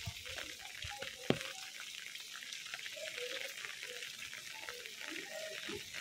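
Steady rain falling on wet pavement, an even hiss speckled with the patter of drops. One sharp click about a second in.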